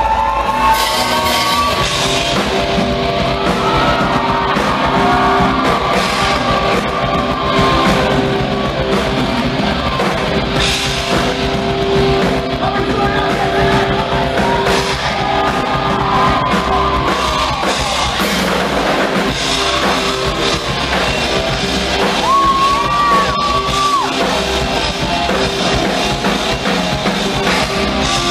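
Live rock band playing loud: electric guitar, drum kit and a sung vocal line. A high note is held for about two seconds three quarters of the way through.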